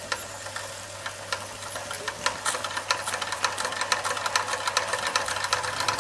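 Doll 365 twin-cylinder toy steam engine running on live steam, a rapid mechanical ticking that quickens and grows louder from about two seconds in as more steam is given.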